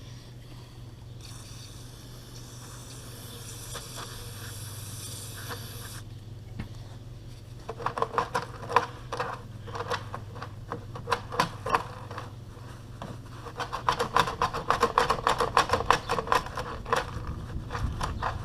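An aerosol can of brake parts cleaner sprays in one steady hiss of about five seconds. A few seconds later comes a long run of rapid scraping and rubbing strokes as grime is worked off the sliding door's rollers.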